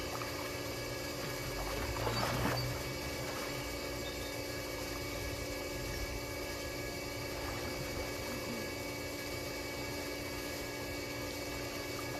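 Steady machine hum holding several fixed tones, with a soft swell of water splashing about two seconds in.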